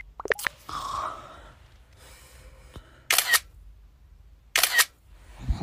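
Camera shutter sound effect, clicking twice: about three seconds in and again a second and a half later.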